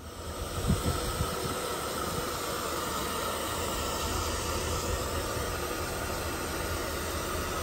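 Hand-held electric hair dryer running, a steady hiss of blown air with a faint whine, drying wet plush toys. It comes up to speed in the first second, with a couple of low thumps about a second in.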